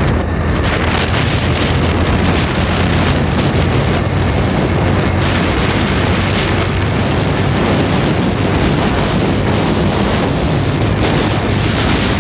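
Wind buffeting the microphone at close to 75 km/h, over the steady running of a modified Bajaj Boxer 100cc single-cylinder motorcycle engine, ridden hard.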